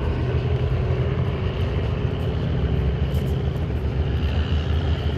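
A propeller-driven light aircraft engine running steadily, a constant hum.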